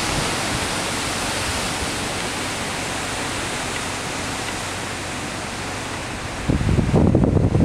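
Wind on the microphone: a steady hiss, with low buffeting gusts from about six and a half seconds in.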